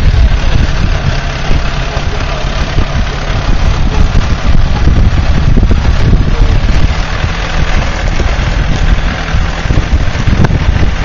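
Farm tractor engine running steadily as the tractor drives, loud and close.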